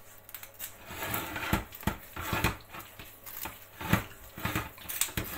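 Irregular knocks and clatters of cookware being handled on a kitchen stove, the loudest about four seconds in.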